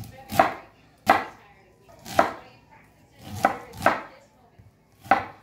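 Kitchen knife cutting roasted corn kernels off the cob on a wooden cutting board: about six separate, unevenly spaced strokes, each ending as the blade strikes the board.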